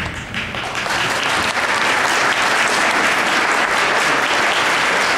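Theatre audience applauding, building over the first second or so into steady, loud clapping.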